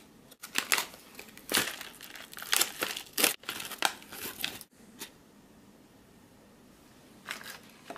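An MRE shortbread cookie pouch of foil-lined laminate crinkling and being torn open by hand. The sound stops about halfway through, with a brief rustle near the end.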